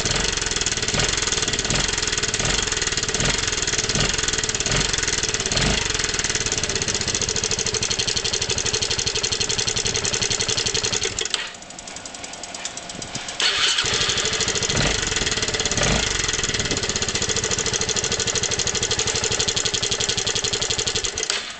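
Yamaha Majesty 250 scooter's single-cylinder four-stroke engine running, with a regular knock about twice a second: the abnormal engine noise the scooter is being checked for. About halfway through the engine dies down. It is started again and runs on, then cuts off just before the end.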